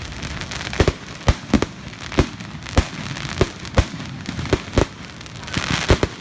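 Fireworks display going off: an uneven string of sharp bangs, about two a second, over continuous crackling, with a spell of hissing crackle near the end.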